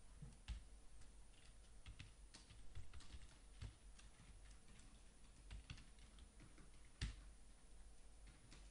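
Typing on a computer keyboard: faint, irregular key clicks, with one louder click about seven seconds in.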